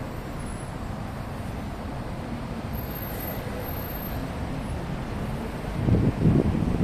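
Steady traffic noise from a jammed multi-lane highway. Near the end, wind buffets the phone's microphone in loud low rumbles.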